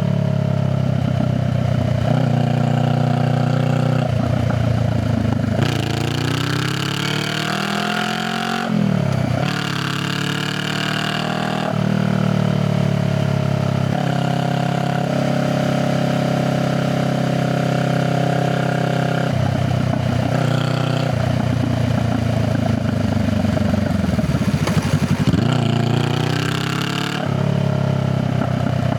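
Honda Rebel 500 parallel-twin engine and exhaust while riding: the revs climb and drop several times as it pulls through the gears, hold steady in a cruise through the middle, then fall away and pick up again near the end.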